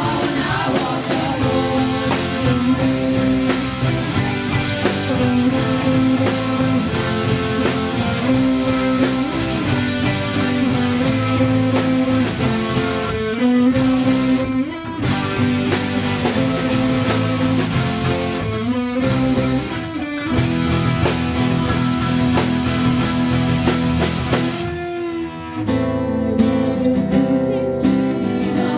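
Live rock band playing: electric and acoustic guitars and a drum kit, with several voices singing. The music dips briefly near the end before carrying on.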